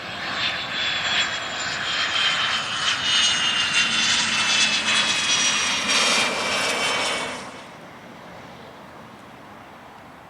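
Jet aircraft passing close by: engine noise with a high whine sliding down in pitch as it goes past, cutting off fairly suddenly about three quarters of the way through.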